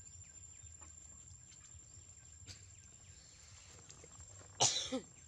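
A single short animal cry about three-quarters of a second before the end, harsh and noisy with a falling pitch. Before it there is a faint, irregular clicking from a puppy eating out of a bowl.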